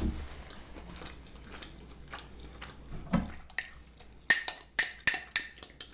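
Soft chewing, then from about three and a half seconds in a quick run of sharp clinks and scrapes as a metal spoon digs cheese dip out of a nearly empty glass jar.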